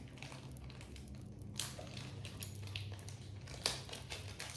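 Costume jewelry being handled, giving a few light clicks and rustles over a low steady hum.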